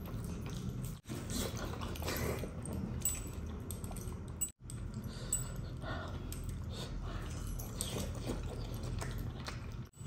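Close-up eating sounds: chewing and smacking of mouthfuls of fish curry and rice eaten by hand, with small clicks and squelches of fingers in the wet curry and clinks of metal bracelets and rings.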